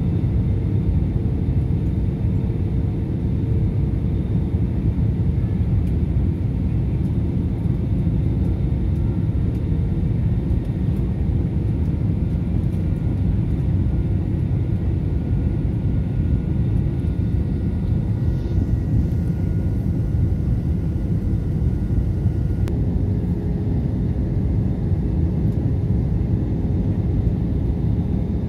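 Steady rumble of airflow and engines inside the cabin of an Airbus A320 airliner on descent, with faint steady whining tones above it. Some of those tones change about three-quarters of the way through.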